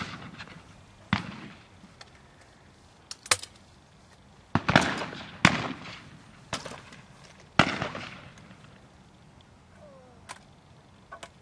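Shotgun shots on a clay range: about six sharp reports over some seven seconds, some close together, each trailing off in a short echo. Near the end there are only a couple of faint clicks.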